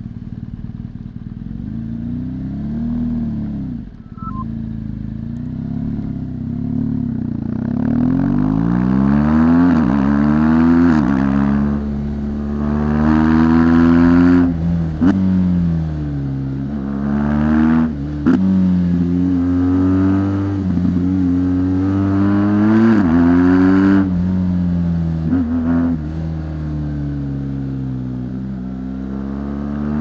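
2017 BMW R1200 GS Rallye's liquid-cooled boxer twin on its stock exhaust, heard from onboard: low and steady for the first several seconds, then pulling hard, its pitch climbing and dropping sharply several times as it shifts through the gears.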